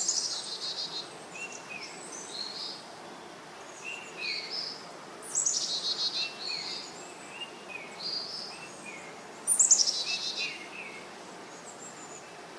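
Birds calling and singing. A loud, fast trilled phrase comes three times, about every four to five seconds, with shorter high chirps in between.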